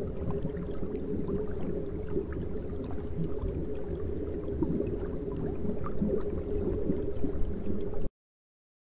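Water bubbling and churning steadily, with small scattered pops. It cuts off suddenly about eight seconds in.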